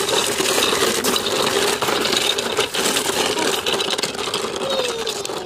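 Rattling, clattering noise from a bicycle ride, with a steady rushing hiss and many small clicks and knocks.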